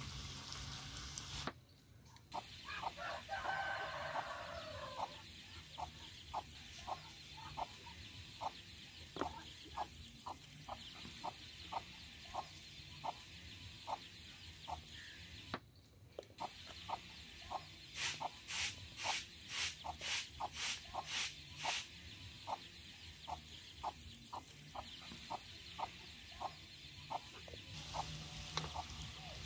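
Chickens clucking faintly in the background, with short clucks repeating irregularly throughout. Oil sizzles in the frying pan for the first second or so and again near the end, and a quick run of sharp ticks comes around the middle.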